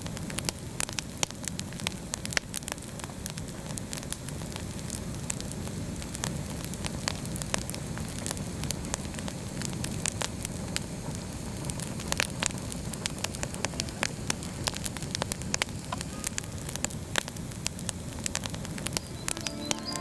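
Wood campfire burning: a steady low rush of flame with frequent sharp crackles and pops from the burning logs.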